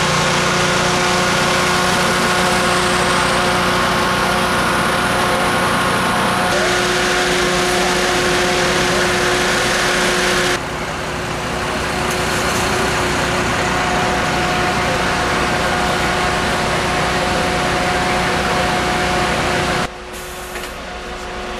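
Fire engines' diesel engines running steadily, a loud even drone with a few steady tones. The sound changes abruptly three times, a little after a quarter of the way in, about halfway, and near the end.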